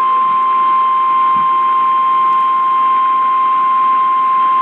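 Emergency Alert System alert tone, a single steady pitch just above 1 kHz, heard over AM radio with a background of static hiss; it is the tone that announces an alert issued as a Child Abduction Emergency.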